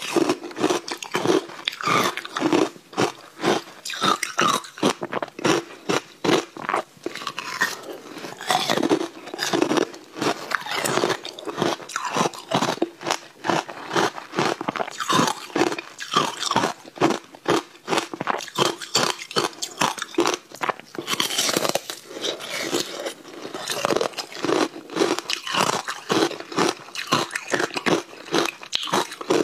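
Layered frozen ice blocks being bitten and chewed: a dense, continuous run of hard crunches, several a second.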